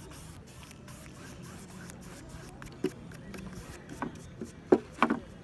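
Lakeside beach ambience of people playing in the water: a steady background hiss, then several short, sharp sounds in the second half, the loudest just under five seconds in.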